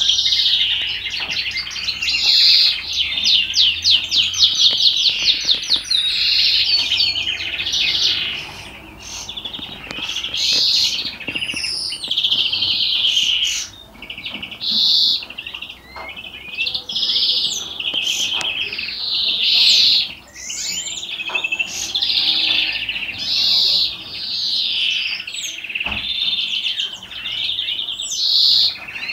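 European greenfinch singing its 'salma' song: long runs of rapid trills, phrase after phrase with short pauses between, and brief rising whistled notes in between.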